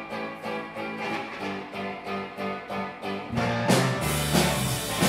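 Live rock band starting a song: an electric guitar alone picks a repeated riff at about three notes a second, then drums and bass come in with the full band about three and a half seconds in.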